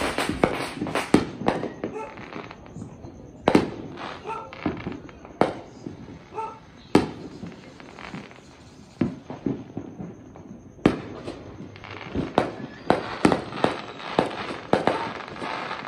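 Fireworks bursting overhead: an irregular series of sharp bangs, a few seconds apart at first, then a rapid cluster of bangs near the end.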